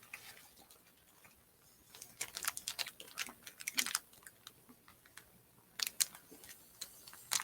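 A person chewing dry, crunchy snack crackers close to the microphone: irregular sharp crackles, in a cluster from about two seconds in and again near the end.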